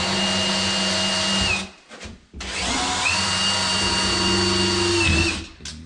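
Power drill run twice. Each time it spins up quickly to a steady whine, holds for about one and a half to three seconds, then stops.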